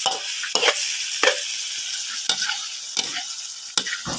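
Diced pork sizzling in oil in a large metal wok, with a metal spatula scraping and knocking against the pan about five times as it is stir-fried.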